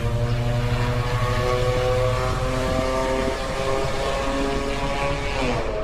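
Motorcycle engine running loud and close with a steady engine note, dipping slightly near the end, loud enough to drown out speech.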